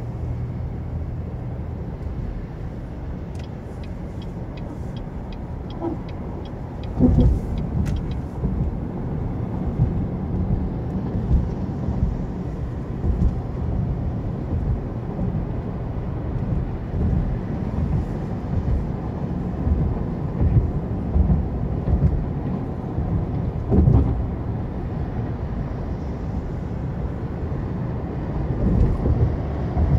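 Low, steady road and engine noise of a car driving at speed, heard from inside the cabin. There is a run of light, evenly spaced ticks from about three to eight seconds in, and heavier thumps about seven and twenty-four seconds in.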